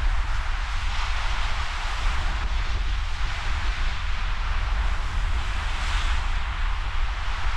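Ocean surf breaking and washing in at a king tide, a steady rush that swells slightly twice, with wind rumbling on the microphone.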